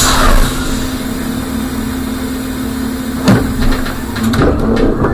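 Trolleybus standing still with a steady electrical hum and low rumble, and a single knock about three seconds in.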